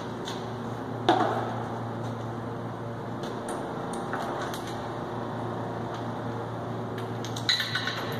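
Hand tools clinking and clanking on metal tractor parts: a sharp ringing clank about a second in and a quick cluster of clinks near the end, with lighter ticks between, over a steady low hum.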